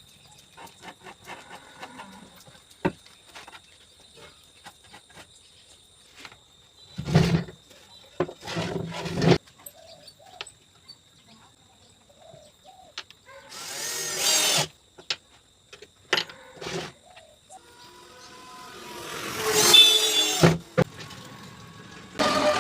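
Scattered clicks and knocks of hand work on wood, a cluster of heavier knocks about a third of the way in, then short bursts of a handheld electric drill, one past the middle and a longer one that builds up and stops abruptly near the end.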